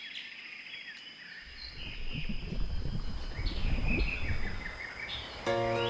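Nature ambience of birds chirping over a steady high insect-like tone, with a low rumble coming in after about a second and a half. Sustained music notes start near the end.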